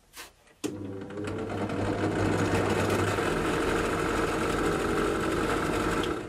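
Performance Power Tools benchtop drill press switched on just under a second in, its motor and spindle then running steadily with an even hum. It is being run to check whether a freshly tightened screw has cured its rattle.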